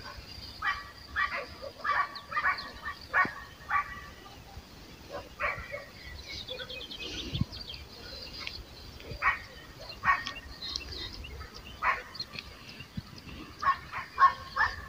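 A dog barking repeatedly in irregular bursts of several barks, with a sparser spell in the middle.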